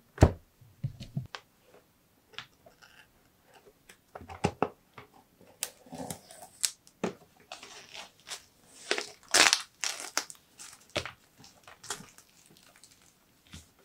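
Scissors cutting and hands tearing and crinkling the plastic wrapping on a boxed mirror: a string of sharp snips and crackles, with a longer rustle about two-thirds of the way in.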